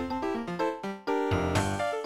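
Samsung SGH-T400 ringtone, a MIDI tune played on the Beatnik synthesizer with its mobile-phone sound set: quick runs of short, bright synth notes over a bass line, with a brief break about halfway.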